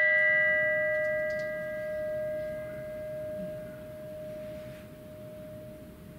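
A bell, struck once just before, ringing on with one clear tone and fainter higher overtones, slowly fading away.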